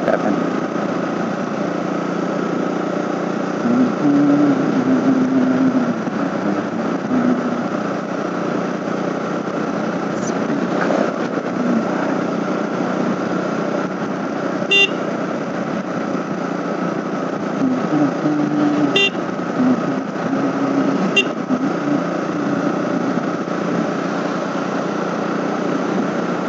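KTM RC 200 single-cylinder motorcycle engine running under way, buried in strong wind rush on the helmet-mounted microphone, with the engine note shifting now and then. Three brief high-pitched sounds come about midway and later.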